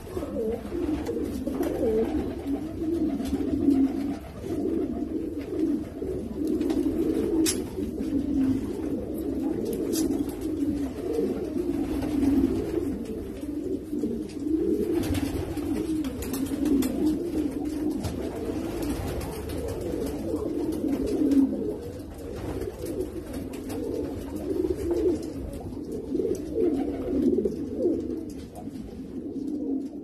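Iranian pigeons cooing: a dense, unbroken run of overlapping low coos from several birds in a loft.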